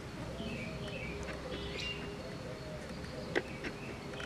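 Outdoor village ambience: small birds chirping in short falling calls, with faint voices in the background and a sharp click a little over three seconds in.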